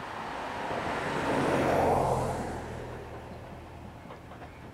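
A car passes by on the adjacent road, its noise swelling to a peak about two seconds in and then fading away.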